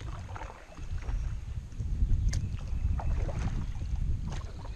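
Wind rumbling on the microphone while a canoe is paddled, the paddle dipping and splashing in the water with a few light ticks and knocks; one sharp tick about two seconds in.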